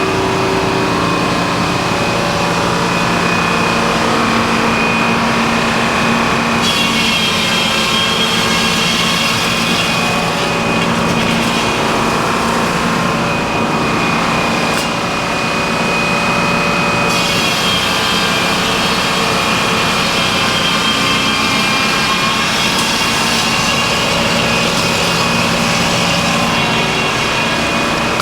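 Circular sawmill with a top saw running steadily under power. About six seconds in, a harsher, higher sound joins as the blade cuts into the log, and it goes on for most of the rest of the time.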